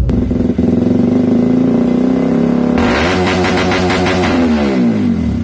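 Motorcycle engine running at steady high revs. About three seconds in it grows louder and brighter, and its pitch slides down over the next two seconds.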